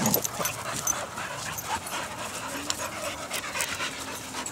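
Several dogs panting as they play and sniff at each other close by, with scattered small clicks and scuffs.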